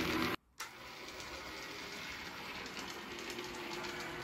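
HO-scale model streetcar's small electric motor whirring faintly and steadily as the car runs along the track, after a brief dropout about half a second in.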